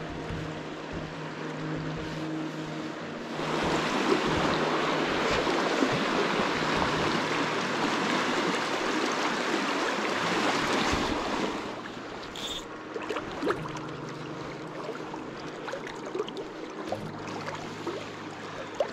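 River water rushing through a shallow riffle, a steady wash that grows louder about three and a half seconds in and eases back after about eleven seconds.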